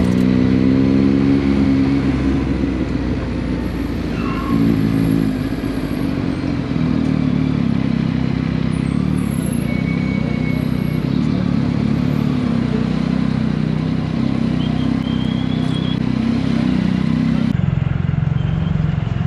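Yamaha motorcycle engine running steadily at low speed in city traffic, with wind and street noise around it.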